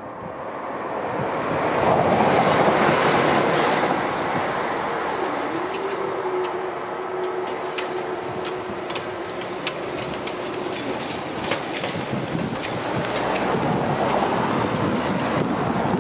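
Wind buffeting the microphone, with a steady hum from level-crossing barriers that starts about five seconds in and stops near eleven seconds as the booms rise.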